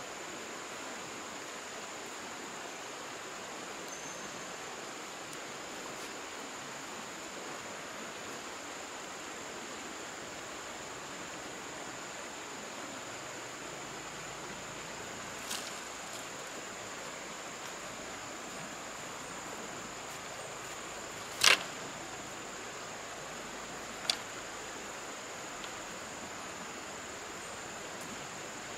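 Streamside forest ambience: a steady rush of running water with a constant high insect drone. Three sharp knocks break it, the loudest about two-thirds of the way in.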